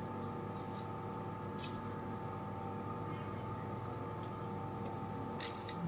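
A steady hum with a few faint, short clicks scattered through it.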